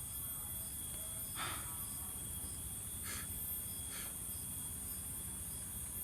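Steady high-pitched chorus of night insects, crickets or similar, with a faint chirp pulsing about twice a second. Three brief noises stand out over it about one and a half, three and four seconds in.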